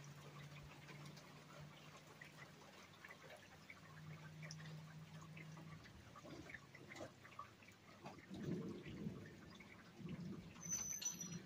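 Faint rain, with scattered drops and drips ticking. A steady low hum sits under the first half, and a low rumble rises in the second half.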